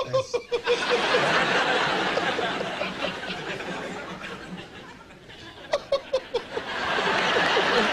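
A man laughing helplessly and half stifled: long breathy, wheezing laughter, then a quick run of short laughs about six seconds in.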